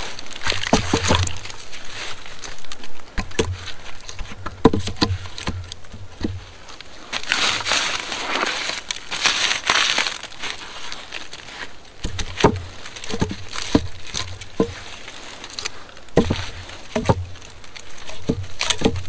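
Short pine log sections being set down and knocked against one another and against the log frame: irregular hollow wooden knocks throughout. Dry leaves rustle and crunch underfoot, with a longer stretch of rustling around the middle.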